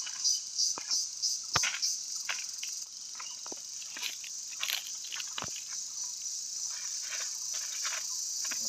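Wood fire crackling around upright bamboo cooking tubes, with irregular sharp pops, a few of them loud. A steady high insect drone runs underneath.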